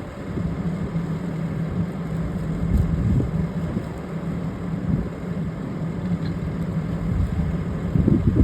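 An engine idling steadily with a low hum, and a few dull thumps over it.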